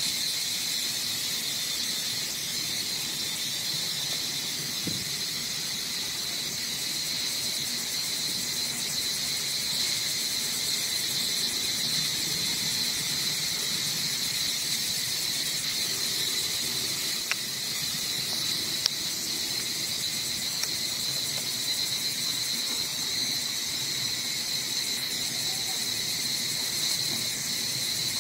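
Steady insect chorus: an unbroken, high-pitched shrill buzz holding one pitch, with two faint short ticks a little past halfway.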